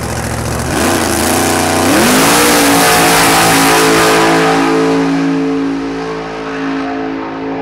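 Drag racing car's engine revving up as the car launches down the drag strip. It is loudest for a few seconds, then fades as the car pulls away.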